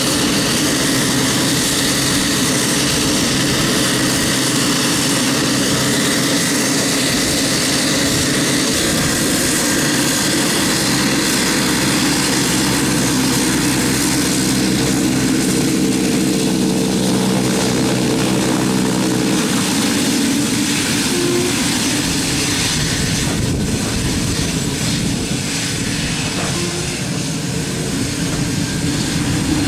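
Pilatus PC-12's Pratt & Whitney PT6A turboprop running at taxi power as the aircraft taxis past: a steady propeller drone with a high turbine hiss.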